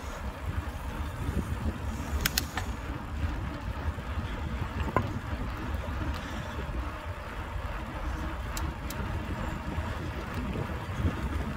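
Steady low rumble of wind buffeting the handlebar-mounted phone's microphone, along with tyre noise from a Carrera Kraken mountain bike rolling along a paved path. A few sharp light clicks come about two seconds in and again past the middle.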